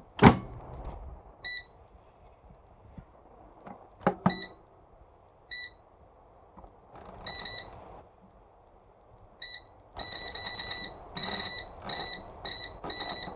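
Air fryer's digital control panel beeping as its buttons are pressed to set the cooking time: a few single beeps, then a quick run of beeps near the end. A loud knock comes at the start, and a double knock about four seconds in.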